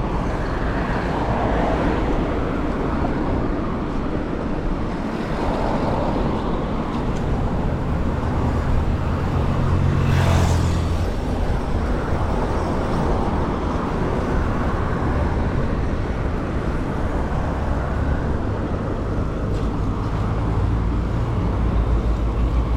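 Road traffic noise heard from a moving bicycle, with a heavy low rumble throughout and a louder rush about ten seconds in.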